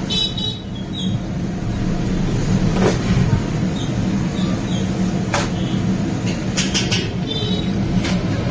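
A steady low mechanical hum, like an engine running, with a few short clicks and knocks as raw chicken pieces are handled in a bowl of water.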